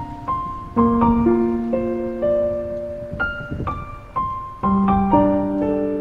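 Background piano music: a slow, gentle melody of single struck notes over held chords, each note fading as the next comes in.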